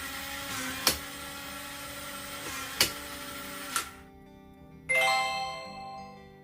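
Nuki Smart Lock 2.0's electric motor running as it turns the door lock, with sharp clicks about a second in, near three seconds, and as it stops at about four seconds. About five seconds in, a bell-like chime rings and fades, over soft background music.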